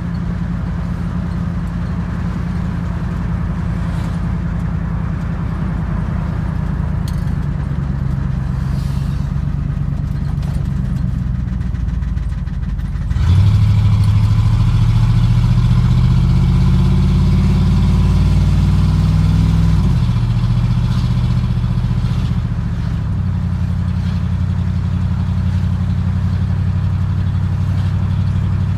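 SquareBody pickup truck's engine pulling the truck along, heard from inside the cab. It runs steadily, then about halfway through gets louder and climbs in pitch as the truck accelerates for several seconds, before easing back to a steady run.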